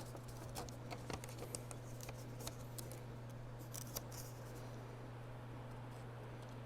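Faint scattered clicks and light taps from handling, for about the first four seconds, over a steady low hum.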